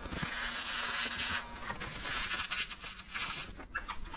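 Hand spray bottle spraying tack solution under lifted paint protection film: hissing sprays, one long one of about a second, then three or four shorter ones.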